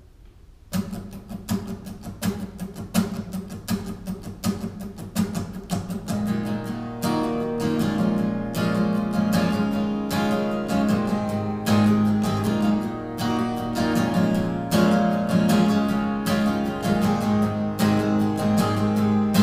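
Steel-string acoustic guitar playing a song's instrumental intro: sparse picked notes begin just under a second in, then from about six seconds in it fills out into steady rhythmic strumming with strong bass notes.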